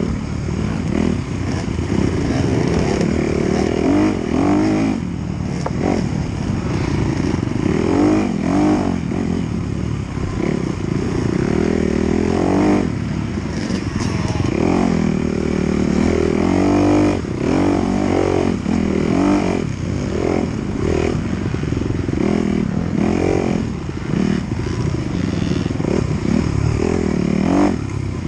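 Dirt bike engine, close to the rider's camera, revving up and down over and over as the throttle is worked along a rough off-road trail.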